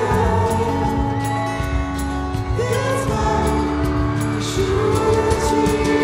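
Live pop ballad played by a band through a concert PA, with singing over long held notes and a steady beat of drums and cymbals.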